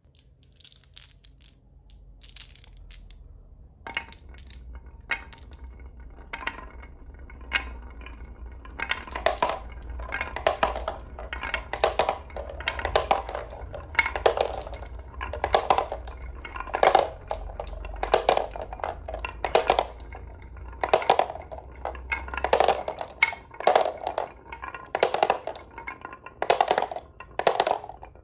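Glass marbles rolling down a wooden wavy-grooved track with a low rumble, clacking against the wood and dropping into a plastic toy dump truck's bed. The clacks come one after another, one or two a second, from about nine seconds in.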